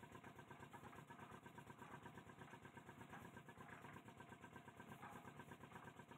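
Near silence, with a faint, steady, rapidly pulsing mechanical hum underneath.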